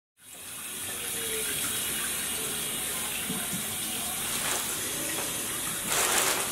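Water running from a kitchen tap into a sink, a steady rush that fades in at the start. Near the end a plastic bag rustles briefly.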